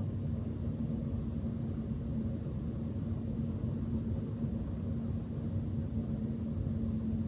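Steady low hum and rumble of running electronic equipment, with a constant drone that does not change.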